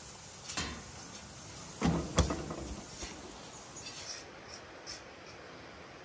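A knock, then a heavy thud with a short clatter about two seconds in, then a few light clicks, over a steady rushing hiss of the river.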